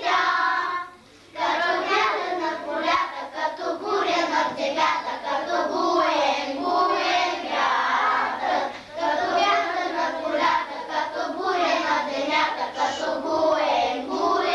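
A group of young children singing together in Bulgarian in unison, with a short break about a second in.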